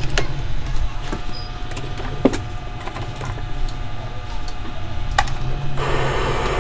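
Daewoo flat-screen CRT television powered on: a steady low hum with scattered sharp crackles from the picture tube's high voltage, joined by a steady hiss near the end. This is the sound of the raster coming up and staying on, the set no longer tripping off.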